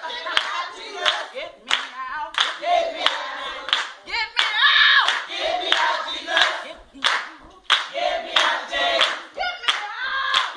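A group of voices singing a gospel song over steady hand clapping, about three claps every two seconds.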